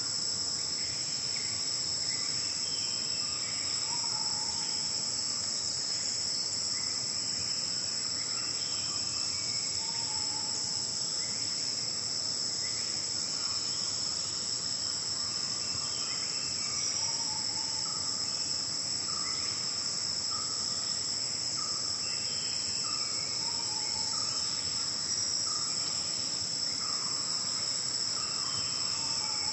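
A steady, high-pitched chorus of forest insects, with faint short bird calls repeating over it, about once a second in the second half.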